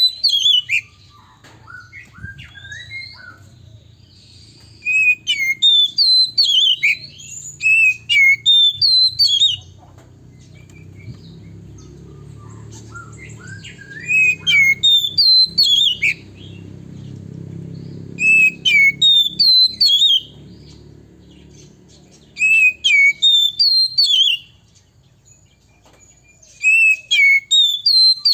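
Male Oriental magpie-robin singing: loud runs of quick, high whistled and chirping notes, repeated in bouts of a few seconds with short pauses between.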